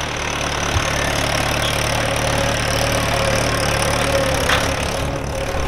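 An engine idling steadily, with an even low hum and a constant mid-pitched tone.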